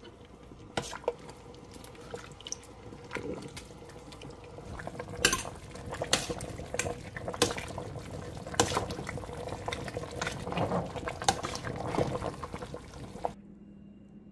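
Ladle stirring a stainless steel pot of simmering soup: liquid sloshing, with repeated sharp clinks and knocks of metal on the pot. It stops abruptly about a second before the end.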